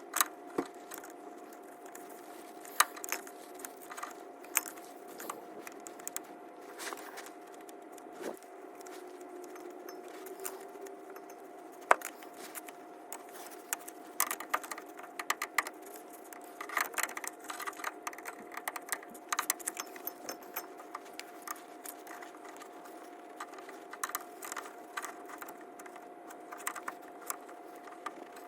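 Irregular metallic clicks, taps and rattles of a hand tool working against the transfer case shifter arm and linkage as they are pried apart, with one sharper knock about twelve seconds in, over a steady faint hum.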